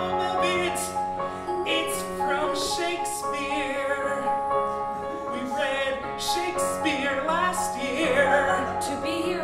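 A man singing with vibrato over held chords on a Yamaha electric keyboard.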